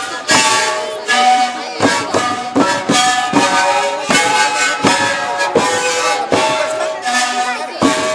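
Sikuri ensemble playing a pasacalle: many siku panpipes sounding a traditional Andean melody together over a steady drum beat, about four strokes every three seconds.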